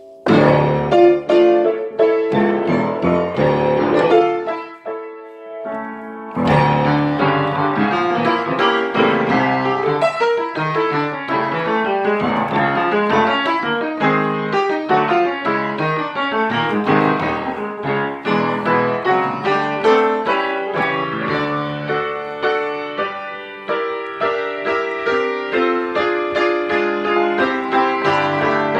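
Piano music with many quick notes, breaking off briefly about five seconds in and then carrying on.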